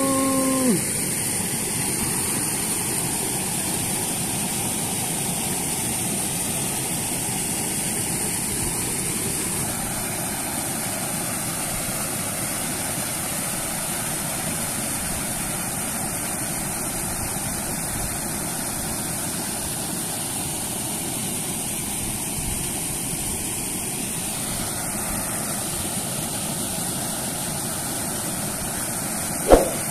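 Steady rushing of flowing stream water. A short falling tone comes at the very start, and a brief sharp sound just before the end.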